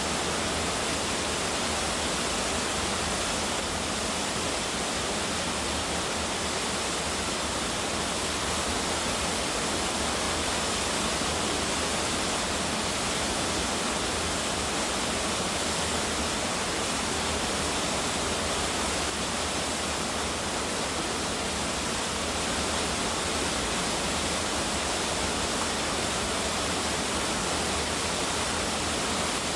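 Waterfall: falling water gives a steady, even rushing noise that does not change.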